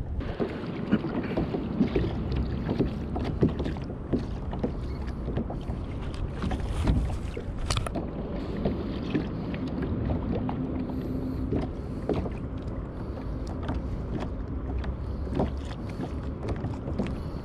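Water splashing and lapping against a kayak's hull, with many small knocks and clicks of gear on the boat and a low rumble of wind on the microphone.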